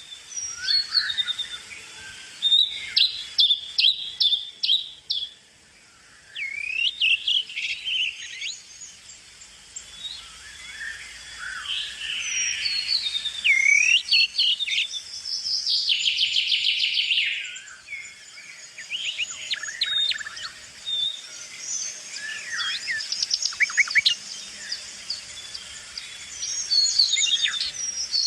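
Several songbirds singing and chirping, with overlapping phrases of quick whistled notes and a few rapid trills, one held for about two seconds around the middle.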